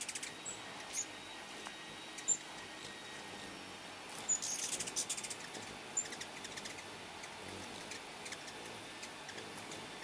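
Ruby-throated hummingbirds chipping and chattering: short high squeaky chips scattered through, with a burst of rapid clicky chatter about four seconds in.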